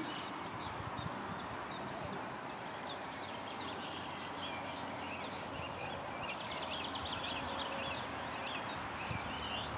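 Small birds chirping and twittering over a steady outdoor background, with a quick run of rapid trilled notes about three-quarters of the way through.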